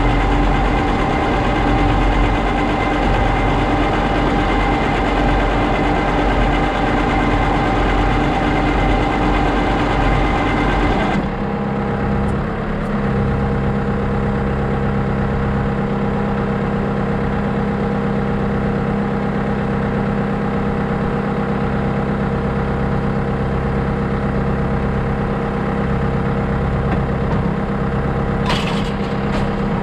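Self-propelled crop sprayer's engine running steadily, with a hiss over the engine note. About eleven seconds in, the sound changes: the hiss drops away and a lower, steady hum takes over, as the spraying ends and the boom is folded up.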